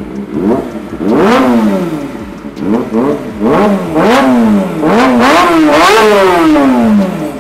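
Kawasaki ZX25R 250 cc inline-four fitted with an Arrow Pro Race exhaust, revved hard while standing still: it idles, then takes about six quick throttle blips that shoot up in pitch and drop back. The last rev falls slowly back to idle near the end.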